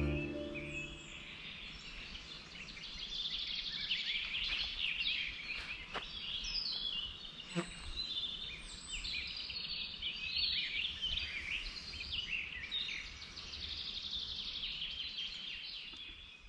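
Wild songbirds singing, a busy overlap of quick high chirps and twitters; background music fades out in the first moment.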